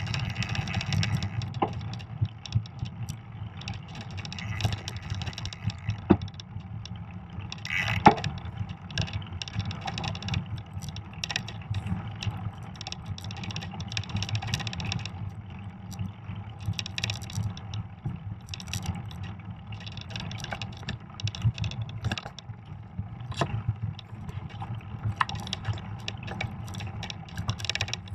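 Fat bike riding over a snowy trail: a steady low rumble of the wide tyres rolling on snow, with frequent clicks and rattles from the bike over bumps, and one sharp knock about eight seconds in.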